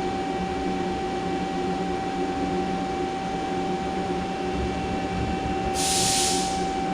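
Steady hum of running machine-shop equipment with a constant high whine. A short burst of hiss comes about six seconds in.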